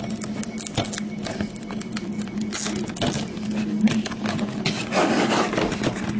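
Hands working at a trading-card box and its packaging: irregular scraping, tearing and clicking as it is pried and pulled open, over a steady low hum.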